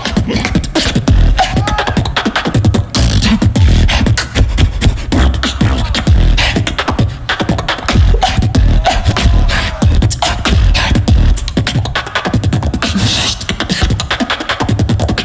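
Solo beatboxer performing through a microphone: a fast, dense beat of vocal kick drums with deep bass and sharp snare-like clicks, broken by a few short hummed notes.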